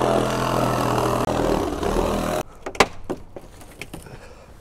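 A loud, steady machine hum cuts off suddenly about two and a half seconds in. After it come a few faint clicks and knocks.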